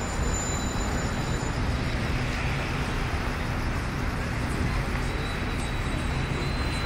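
Steady noise of road traffic, an even continuous rumble without clear breaks or single passing vehicles standing out.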